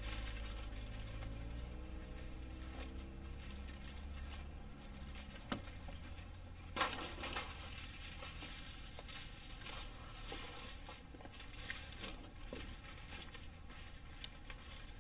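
Aluminium foil being crinkled and folded by hand: faint, scattered rustling and crackling, with a couple of sharper crackles around five and seven seconds in.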